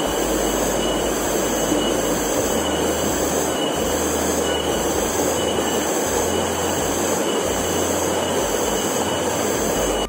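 Small waterfall cascading over rocks into a pool: a steady rush of falling and churning water.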